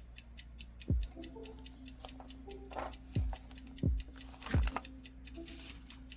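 Steady clock-like ticking, about four to five ticks a second, with a few deep booms that drop in pitch and a low steady hum coming in about a second in, like a ticking music or sound-effect track.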